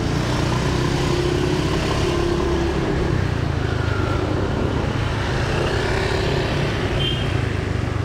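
Road traffic heard from a moving motorbike: a steady low engine hum with the noise of surrounding cars and motor scooters.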